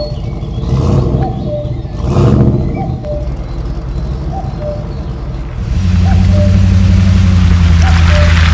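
Dubbed engine sound effect for toy off-road cars: an engine running, revving up briefly twice in the first few seconds. About two-thirds of the way through it switches to a louder, deeper steady engine drone.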